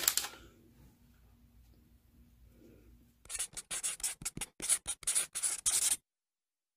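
Brief knock at the start, then faint room tone; from about three seconds in, a pen scratching quickly across paper in short strokes, a handwriting sound effect that cuts off suddenly.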